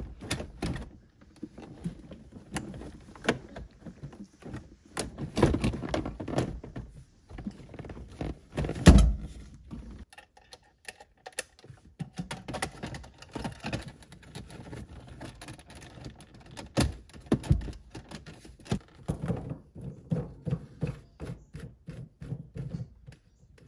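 Plastic centre-console trim panels being handled and pressed into place around a gear shifter: an irregular run of knocks, clicks and thunks, the loudest about nine seconds in.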